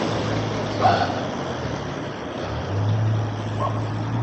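A motor vehicle's engine runs close by as a steady low hum over road and wind noise. The hum drops out briefly in the middle, then returns and rises a little in pitch near the end.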